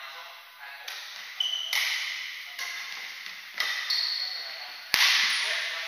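Badminton rally: rackets striking the shuttlecock with sharp pops, several hits roughly a second apart, the loudest about five seconds in, each ringing briefly in the hall. Short high squeaks of court shoes on the wooden floor come between hits.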